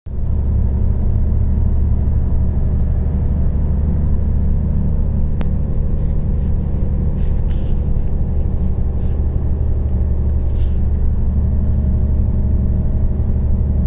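Steady low rumble of a coach's engine and road noise heard inside the passenger cabin while it drives, with a few faint clicks or rattles.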